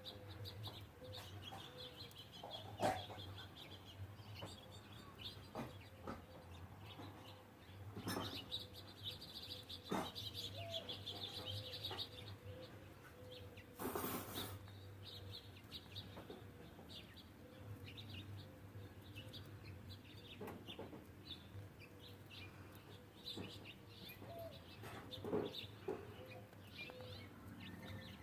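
Small birds at seed feeders chirping and twittering on and off, over a faint steady hum, with a few sharp knocks, the loudest about halfway through.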